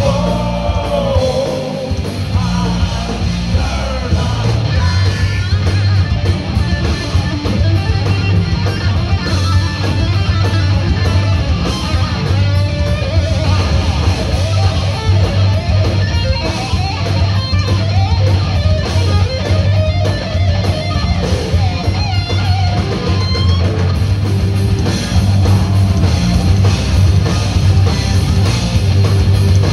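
Live heavy metal band playing: distorted electric guitars, bass guitar and drums.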